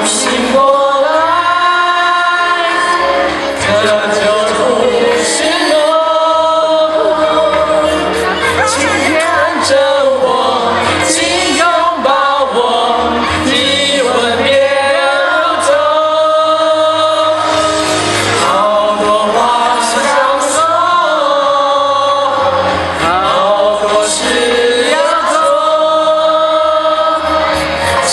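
A large choir of men and women singing a song together, with long held notes.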